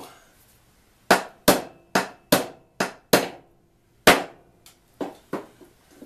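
A hammer driving a small nail into a wooden birdhouse. About seven sharp strikes come in quick succession from about a second in, followed by a few lighter taps near the end.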